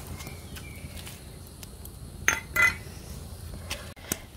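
A spoon clinking and knocking against the pot while the boiling syrup is stirred, with a few short clinks, the two loudest close together about two and a half seconds in.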